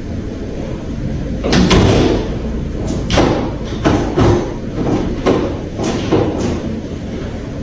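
A door down a corridor banging repeatedly: about eight irregular knocks and bangs, the loudest about a second and a half in.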